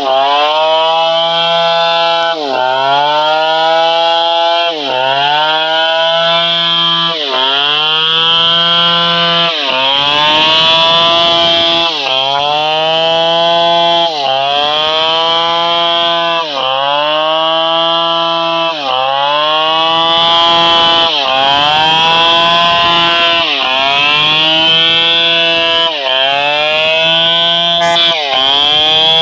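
Stihl 720 chainsaw running at full throttle while cutting wood. Its pitch sags sharply and climbs back about every two seconds as the bar is loaded in the cut and eased off.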